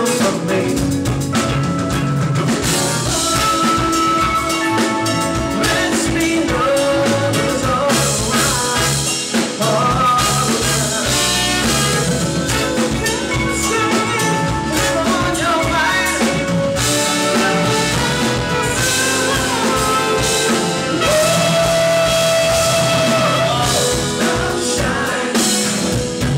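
Band music with a lead singer: a song with drums and guitar, the singer holding a long note about two-thirds of the way in.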